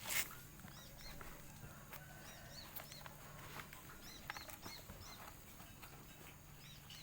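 Small birds chirping repeatedly with short, high, arched chirps. A brief noisy burst sounds just after the start.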